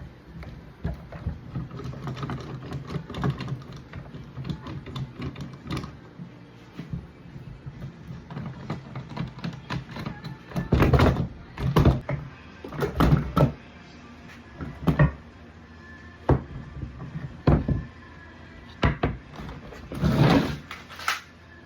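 Woodworking clamps being loosened and taken off a glued-up panel of boards: a run of irregular clicks, knocks and clunks, with louder clunks in the second half.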